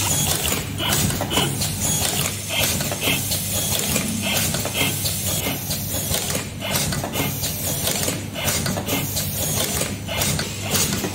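Automatic LED soldering and wire-twisting machine running: a low steady hum under an irregular run of mechanical clicks and clacks from its indexing and clamping mechanism.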